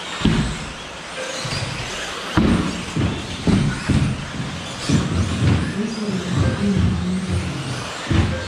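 1/10 scale 2WD electric off-road RC buggies racing, motors running and surging as the cars accelerate past, with music underneath.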